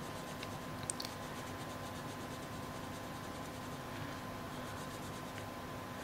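Faint scratching of an Arteza Premium coloured pencil shading on paper, with a couple of small ticks about a second in, over a faint steady hum.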